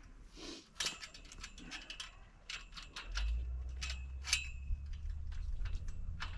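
Metal door latch on a steel-tube chicken run door being fitted and worked: a run of small metallic clicks and ticks. A low rumble joins about halfway through.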